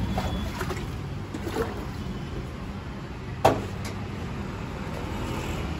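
Steady low rumble, with a single sharp knock about three and a half seconds in.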